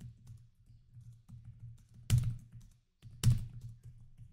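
Typing on a Microsoft Surface Laptop Go 2's built-in keyboard: a quick run of soft key clicks, not very noisy, with two louder strikes about two and three seconds in.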